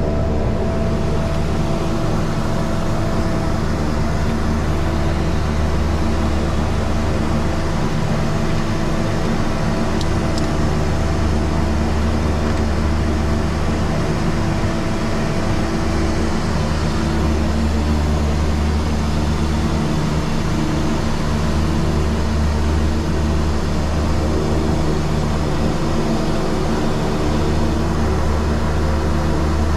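Twin Garrett TPE331 turboprop engines of a BAe Jetstream 32 running steadily on the ground, heard from inside the cabin and cockpit: a constant hum of several low tones over a rushing hiss.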